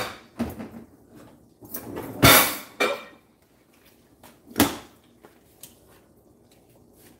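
Handling noises in a kitchen: a knock at the start, a longer, louder clattering scrape about two seconds in, and another sharp knock near five seconds, like things being set down or a cupboard or drawer worked.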